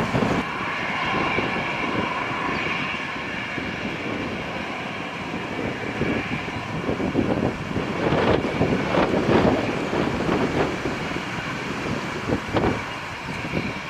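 Airbus A320-214's CFM56 turbofan engines running at taxi power: a steady jet whine over an uneven low rumble.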